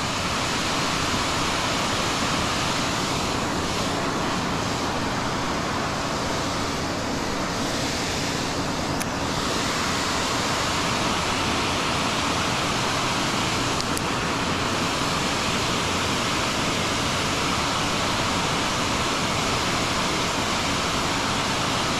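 Fast-flowing creek water rushing below a dam: a steady, even hiss that holds at one level throughout.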